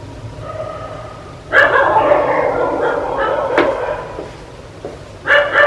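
Dog barking, quieter at first, then loud barks from about a second and a half in, with another loud bark near the end.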